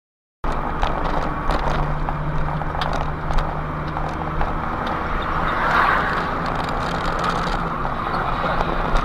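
Steady engine and road noise of a moving vehicle, recorded by a dashcam, cutting in abruptly about half a second in after silence.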